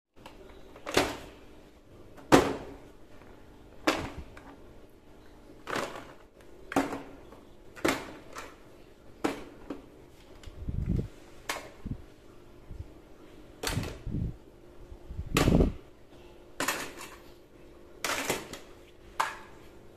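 Plastic toy guns, some in cardboard boxes and blister packs, dropped one after another onto artificial grass, each landing with a thud or plastic clatter. About a dozen drops come every second or two, a few landing with a heavier thump.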